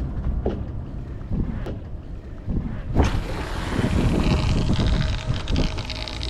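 Wind buffeting the microphone on a small open boat, with water knocking against the hull. About three seconds in, a rushing hiss starts suddenly and holds.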